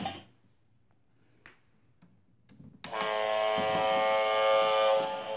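Near silence with a single click, then about three seconds in a toy boat's electronic sound effect gives one long buzzing tone, like a ship's horn, that holds for about two and a half seconds and then fades.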